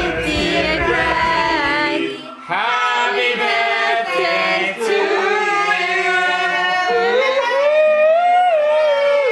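Singing: several voices at once holding long, wavering notes. A low accompaniment drops out about two seconds in, leaving the voices on their own.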